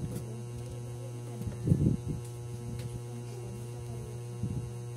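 Steady low electrical hum, with a few soft knocks and rustles of plastic-wrapped goods being handled and dropped into a cardboard box: one about two seconds in and another near the end.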